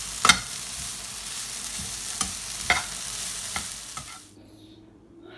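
Vegetables sizzling in a hot frying pan while being stir-fried with a slotted spatula, which scrapes and taps the pan several times. The sizzle cuts off suddenly about four seconds in, leaving a faint low hum.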